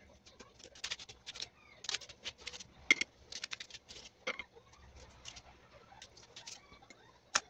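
A small knife cutting through a red onion held in the hand: an irregular run of short, crisp crunching clicks, several a second, as thin rings are sliced off.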